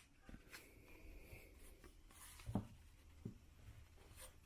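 Near silence with faint rubbing of trading cards being handled and slid against each other, and two soft taps in the second half.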